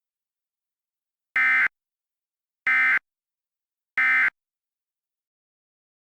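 Emergency Alert System end-of-message (EOM) data bursts: three short, identical bursts of the SAME digital screech, about a second and a quarter apart, signing off the tornado emergency broadcast.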